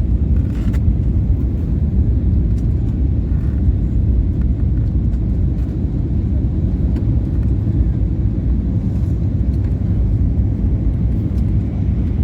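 Steady low rumble of engine and airflow noise inside an Airbus A320neo passenger cabin on final approach, with the landing gear extended.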